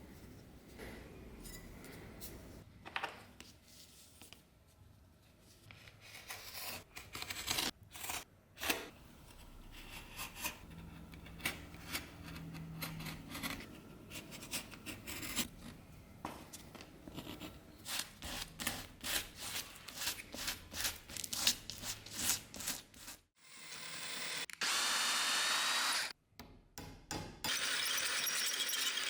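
Workshop tool work: a long run of short, sharp scraping strokes, then a power tool running steadily near the end.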